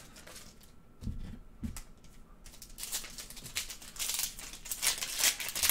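A foil wrapper of a 2019 Panini Select football card pack crinkling and tearing as it is pulled open by hand, mostly in the second half. Two soft low thumps come just after a second in.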